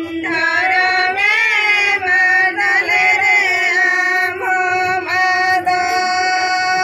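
Voices singing a Santali song, with sliding, wavering pitch and long held notes in the second half.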